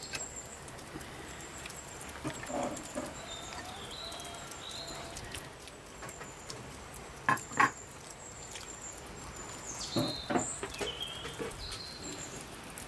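Birds chirping and calling in the background, with a few sharp knocks of tableware: two loud ones close together about halfway through and a few more around ten seconds in.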